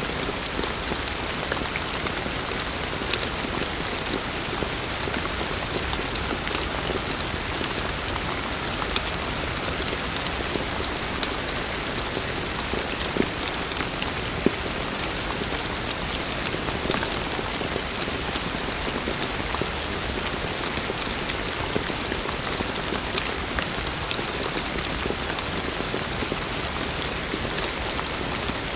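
Heavy rain falling steadily, a dense hiss of drops with individual drop taps and a few louder single drops standing out.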